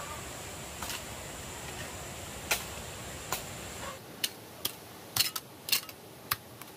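A series of sharp, irregular clicks and taps, coming closer together in the second half, over a steady hiss that drops away about four seconds in.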